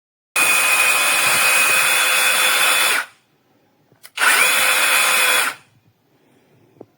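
Cordless mini chainsaw with a brushless electric motor running in two bursts, about two and a half seconds and then, after a short pause, about a second and a half. Each burst carries a steady high whine, which rises as the motor spins up the second time.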